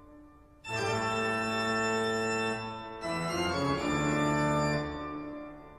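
Organ music playing long sustained chords. It comes in about half a second in, moves to a new chord about three seconds in, and fades out near the end.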